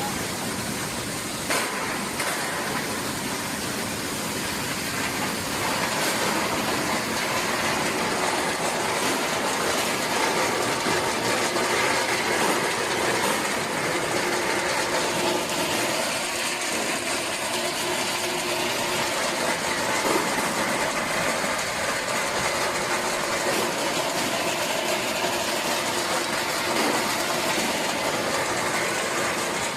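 Horizontal roller brush washing machine running: a steady, even mechanical noise of the driven brush rollers, with a few faint clicks now and then.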